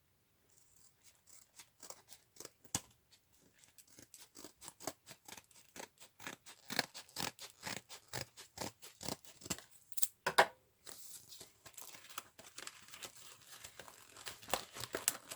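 Metal cutting dies being prised out of tight plastic packaging: a run of small sharp clicks and snaps that grows busier, then plastic rustling and crinkling from about eleven seconds in.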